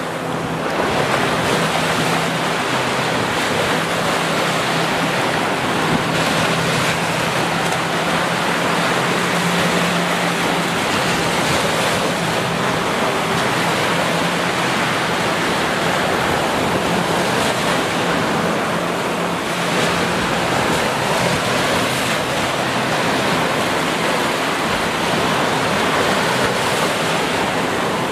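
Ocean surf washing onto a beach, a steady rushing noise with no distinct rise and fall of single waves.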